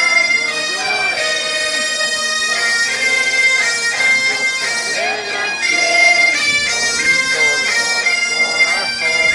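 Bagpipes of a pipe band playing a Mexican folk tune: a melody stepping between held notes over steady drones, without a break.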